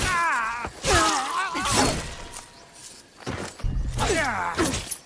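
Kusarigama fight sound effects: sharp metallic clashing and impact hits, mixed with three wavering shouted cries.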